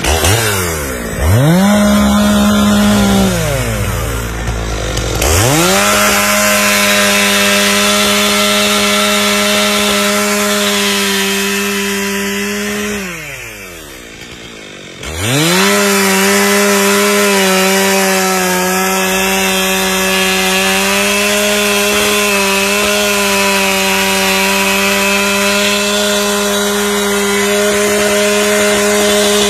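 Two-stroke chainsaw revved to full throttle and held there while cutting into a tree trunk. It sweeps up to speed three times, about a second in, around five seconds in and around fifteen seconds in, and its pitch falls away between runs, with a quieter lull around thirteen to fifteen seconds.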